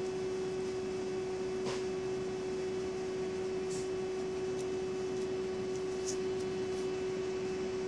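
Electric pedestal fan running: a steady hum with one constant tone over airy noise, with a few faint ticks.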